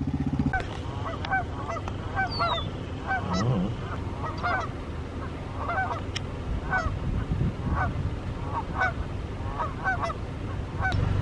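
Canada geese honking over and over, nearly two honks a second.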